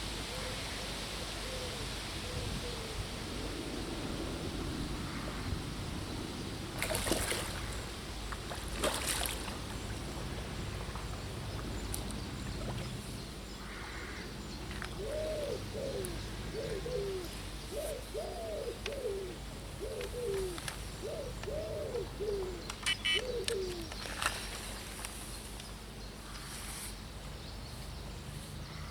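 A pigeon cooing: a series of soft repeated coos, mostly in the second half, over a steady rushing background. A couple of sharp knocks come about a third of the way in.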